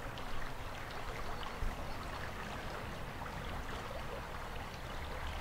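Quiet outdoor ambience: a steady hiss with a low rumble underneath and a few faint small ticks.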